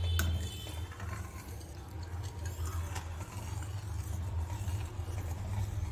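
Steel ladle stirring milk in a steel kadai and scraping the sides of the pan, with a short metallic clink just after the start, over a steady low hum.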